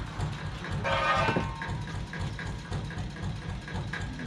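An engine idling steadily. About a second in, a steel tractor wheel rim clangs and rings briefly as it is handled out of a car's boot.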